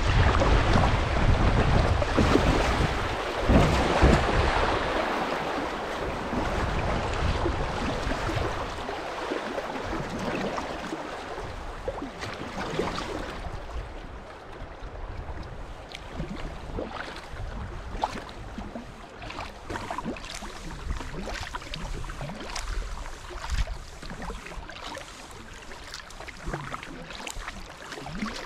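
River water rushing over shallow riffles around a kayak. It is loud at first and fades over the first ten seconds or so as the water calms, leaving drips and small splashes from the paddle strokes.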